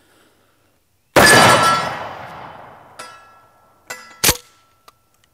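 Single 12-gauge pump shotgun blast from a Remington Tac-14, about a second in, with a long echoing tail. Around four seconds in come quick metallic clacks as the pump action is cycled.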